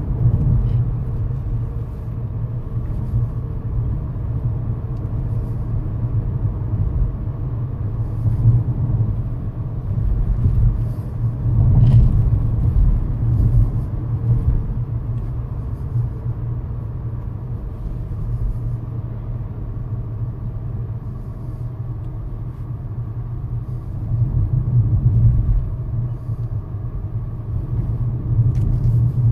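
Low, steady rumble of a car in motion heard from inside the cabin: engine and tyre noise on the road, swelling a little about a third of the way in and again near the end.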